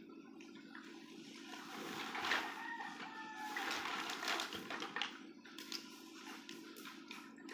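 A woven plastic sack rustling and flapping as it is lifted and shaken, with dry wood scraps clattering against each other in a series of sharp clicks.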